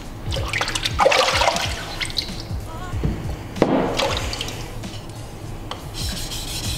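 Water sloshing and splashing in a sharpening tray around a whetstone, twice, about a second in and again near the middle, as hands work in the water. Background music runs underneath.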